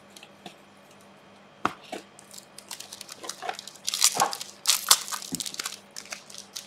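Trading cards being handled and shuffled through: scattered light clicks and rustles, with louder bursts of rustling about four to five seconds in.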